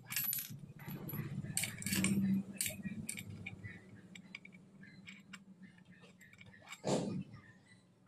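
Metal parts of a scooter torque drive and clutch assembly clinking and rattling as they are handled and fitted together by hand, with a stretch of rubbing about two seconds in and a louder clunk near the end.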